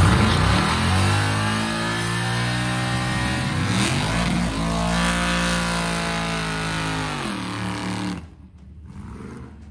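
Small pickup truck's engine revving hard through a burnout: the revs climb, dip briefly, hold high for a few seconds, then fall away. The sound cuts off suddenly about eight seconds in, leaving a much quieter background.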